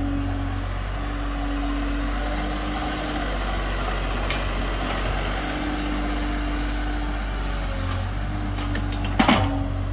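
IHI IS-30GX mini excavator's diesel engine running steadily under load while digging and dumping soil, with a higher steady tone that comes and goes. A single sharp, loud knock near the end.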